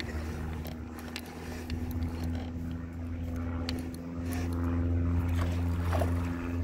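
Small boat's motor running steadily with a low hum, growing louder. A splash breaks the water's surface about six seconds in.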